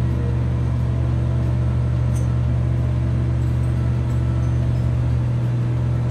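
Engine of a 500-ton mobile boat hoist running steadily while it carries a shrimp boat, a constant low drone with a steady hum above it.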